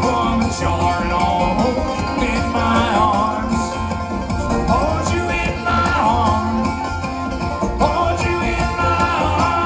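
Live bluegrass band playing, with banjo, mandolin and upright bass and a voice singing the melody.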